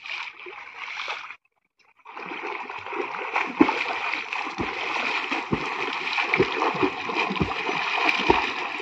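A person swimming through pond water, splashing with regular strokes and kicks about once a second, after a brief splash and a short gap at the start.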